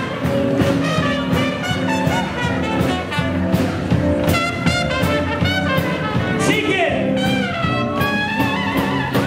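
Live swing jazz band playing: trumpet and other brass over double bass and drums, with a steady beat.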